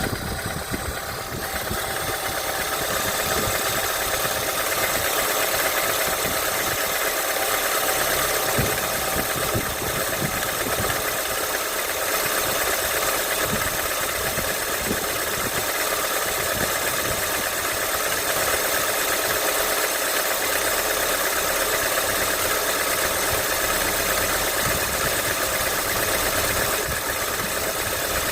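Engine idling steadily with a knock in it.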